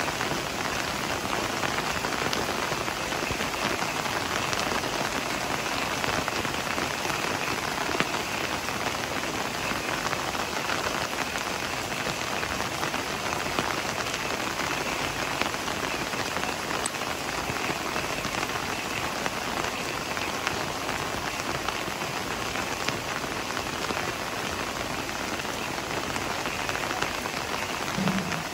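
Heavy rain falling steadily, an even dense hiss with the close patter of single drops hitting leaves. A brief low thump comes near the end.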